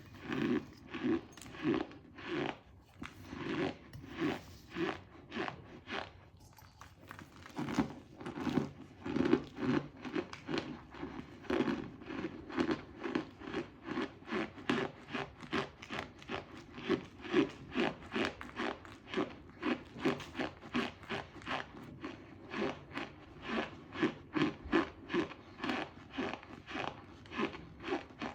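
A person chewing crunchy cornstarch, with a steady rhythm of about two crunches a second and a short pause about six seconds in.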